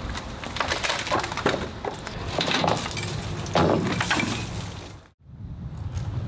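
An old wooden deck being torn apart: boards cracking, splintering and clattering in a run of sharp impacts, with a brief drop-out about five seconds in.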